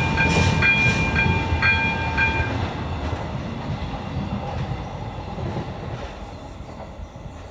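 Level-crossing electronic bell (AŽD ZV-02) ringing about twice a second, stopping about two and a half seconds in as the warning ends after the train has cleared. Under it, the rumble of the departing diesel railcar fades steadily away.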